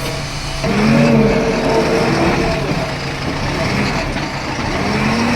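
Diesel engine of a heavy digging machine running, its pitch rising and falling a couple of times as it revs.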